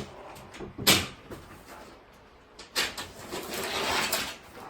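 Metal shelving parts being pulled out of their cardboard box and handled: a sharp knock about a second in, another near three seconds, then about a second of scraping and rustling.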